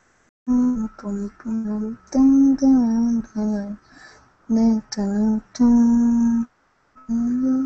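A man singing a melody unaccompanied, in short phrases with held notes and small pitch glides, singing along to a song he hears on headphones.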